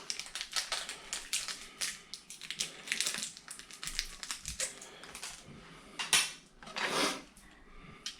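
Small clicks and rattles with crinkling plastic packaging as a new chrome light-switch plate and its screws are unpacked by hand, with two louder rustles late on.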